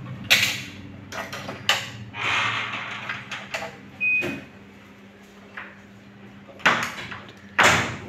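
A hard drive and its SATA data and power cables being handled and plugged in inside a metal computer chassis: several sharp clicks and knocks of connectors and metal, with a rustle of cables between them and a brief high tone about four seconds in.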